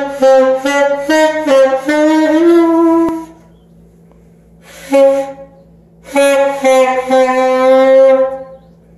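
A child playing an alto saxophone: a run of short separate notes, a pause of about two seconds, one short note, then a longer phrase that ends on a held note.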